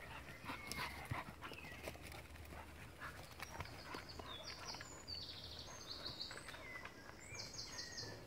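Springer spaniels scrambling through dry leaf litter and undergrowth: a steady run of rustles and small twig snaps from their paws, with some panting. High, evenly pulsed trills sound in the background from about halfway through.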